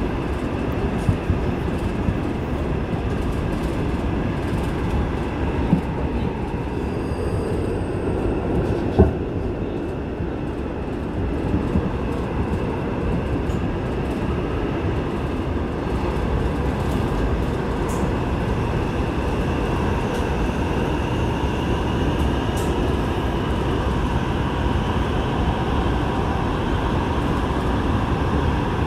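Seoul Line 8 subway train running through a tunnel, heard from inside the car: a steady rumble of wheels on rail with scattered clicks and one sharp knock about nine seconds in. A faint whine rises in pitch past the middle.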